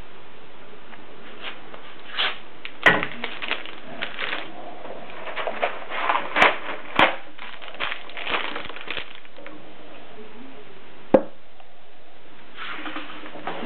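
Plastic-wrapped packets of dried spaghetti crinkling and rustling as they are lifted off a balance scale's pan and set down on a wooden table, with several sharp knocks among them. One more sharp knock comes on its own about eleven seconds in.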